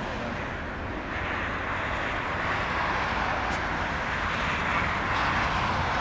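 Jet engine noise from a landing Boeing 747's four engines: a steady rushing sound that grows gradually louder.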